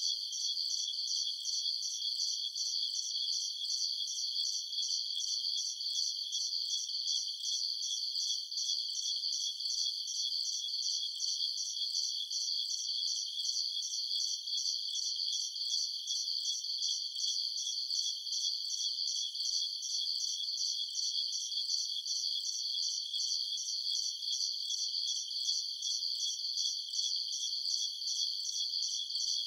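High-pitched insect chirring, like crickets, pulsing evenly several times a second at a steady level, with no low sound beneath it.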